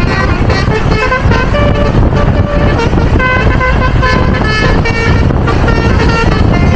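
Bus basuri telolet horn playing a quick run of short musical notes, changing pitch every few tenths of a second, over the steady low rumble of the moving bus and road.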